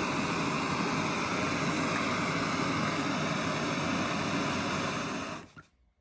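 Handheld gas torch burning with a steady rushing hiss as its flame heats the end of a copper tube. It starts with a click and cuts off abruptly about five and a half seconds in.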